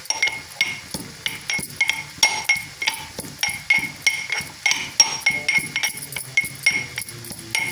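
Metal pestle pounding cashews in a metal mortar: repeated ringing clinks of metal on metal, about three strikes a second, as the nuts are crushed fine.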